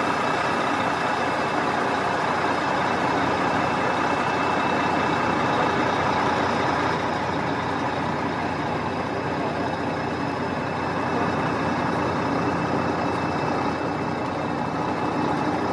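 Steady engine and road noise inside a moving tour bus, an even drone with a faint high whine running over it.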